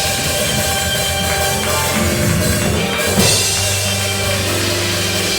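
Live church band music: a drum kit playing under held, sustained chords, with a heavier drum hit a little after the midpoint.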